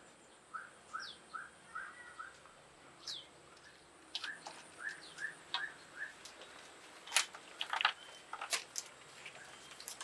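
Birds chirping: a run of short, evenly repeated notes and a few quick falling calls, with several sharp clicks in the second half.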